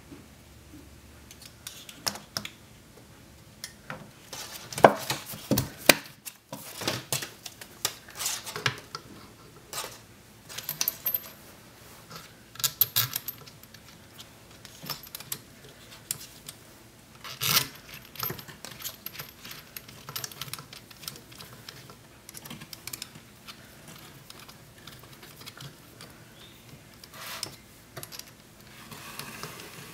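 Small metal valve parts being handled: a solenoid valve taken off a pneumatic ball-valve actuator and another fitted, giving irregular clicks, taps and metallic clinks, loudest about five seconds in and again just past the middle.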